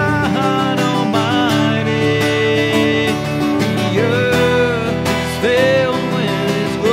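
A man singing a worship song to his own strummed acoustic guitar, holding long notes about four and five and a half seconds in.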